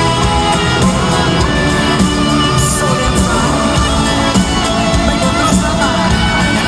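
Live rock band playing loudly through a concert PA, with electric guitar, bass and drums, heard from within the audience with some crowd shouting.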